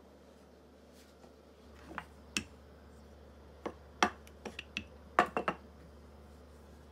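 Wooden rolling pin working pita dough on a countertop, with a string of sharp clicks and knocks starting about two seconds in and bunching together near the end, over a steady low hum.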